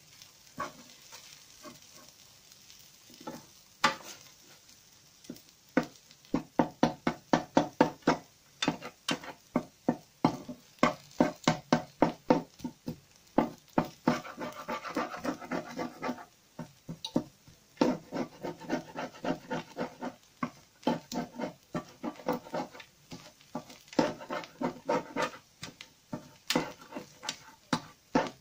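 Spatula stirring and scraping fried rice in a frying pan, with faint sizzling. A few scattered strokes at first, then a steady run of strokes about three a second from about six seconds in.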